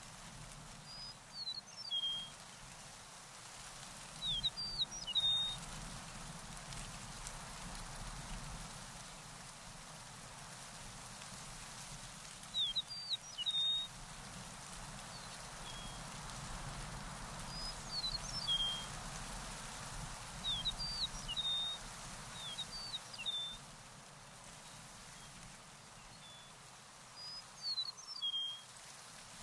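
A small songbird singing short phrases of quick, high chirping notes, one phrase every few seconds, over a steady outdoor hiss.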